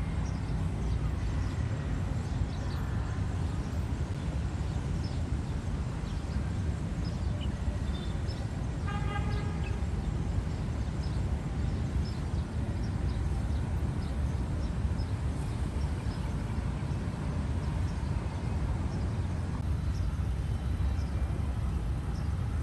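City street traffic with a steady low rumble; a vehicle horn sounds once, briefly, about nine seconds in.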